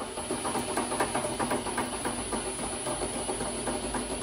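Battery-powered cordless drill running at low speed, turning the horizontal bandsaw's vise handwheel through a hockey-puck adapter to drive the movable jaw closed. A steady whir with a fast regular ticking.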